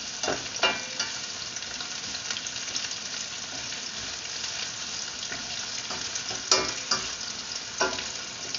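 Sliced onion and garlic sizzling steadily in hot oil in a nonstick pan, stirred with a spoon that knocks and scrapes against the pan a few times, loudest about two-thirds of the way in.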